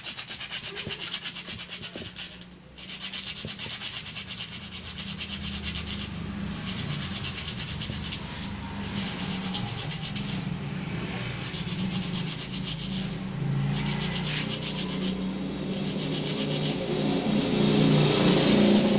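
A thin metal speargun dart being rubbed quickly back and forth by hand against sandpaper, a continuous rapid scraping with a brief pause about two and a half seconds in, growing louder near the end. The dart is being sanded down so that it will fit into the speargun.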